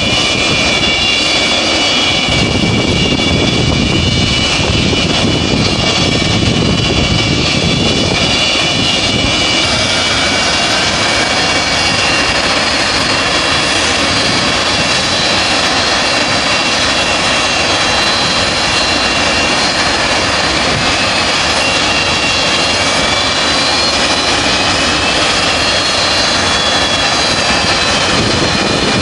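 The six turbofan engines of an Antonov An-225 Mriya running on the ground: a loud, steady jet noise with several high whining tones. About ten seconds in the sound changes and a rising tone joins in.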